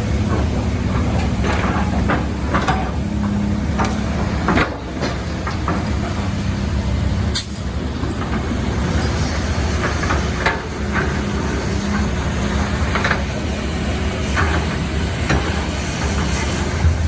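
Heavy diesel vehicle engine running steadily, with scattered knocks and metallic clanks, one sharper clank about halfway through.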